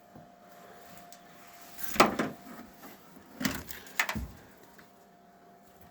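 Three sharp knocks or clunks, the first about two seconds in and the loudest, then two more about a second and a half and two seconds later, over a faint steady hum.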